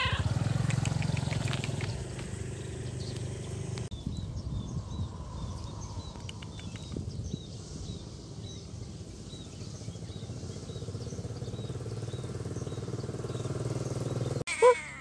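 A cat meows once near the end, a short, loud call, over a steady low rumble. From about four seconds in, faint high chirps repeat in the background.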